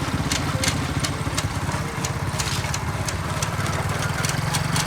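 Small motorcycle engine idling steadily with an even low pulsing, used to drive a knife-sharpening setup. Irregular sharp ticks sound over it.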